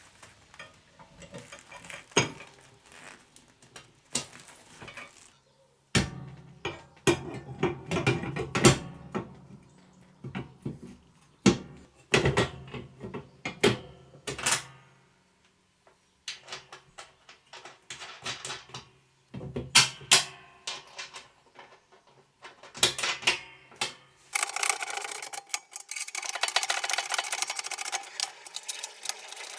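Small steel parts clinking and knocking as nuts, bolts and linkage are fitted to a steel mower deck by hand. From about three quarters of the way in, a ratchet wrench clicks rapidly and steadily.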